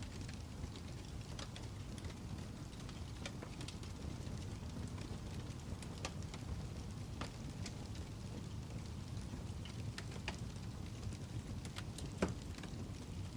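Wood fire burning with a steady low rumble and scattered sharp crackles and pops, the loudest pop about twelve seconds in.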